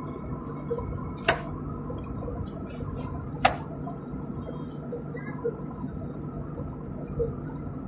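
Steady drone of an airliner cabin in cruise flight, with two sharp clicks, one about a second in and one about three and a half seconds in.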